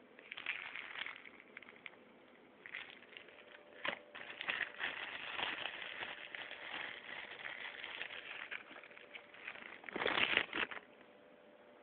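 Packaging being handled: rustling and crinkling with many small clicks, loudest in a burst about ten seconds in.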